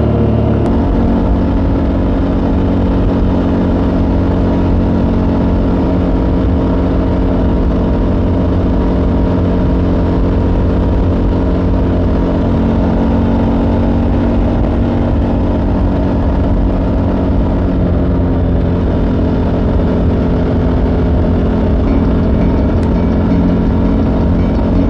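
KTM 1290 Super Adventure S's V-twin engine running steadily while the motorcycle is ridden, heard from the bike-mounted camera.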